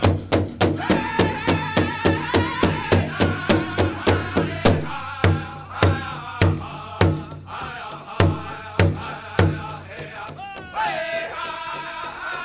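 Powwow drum group singing a men's chicken dance song: several men's voices in high-pitched singing over a large drum. The drum beats fast and steady, about four strikes a second. Around the middle the beat slows to single strikes about every half second, then stops near the end while the singing goes on.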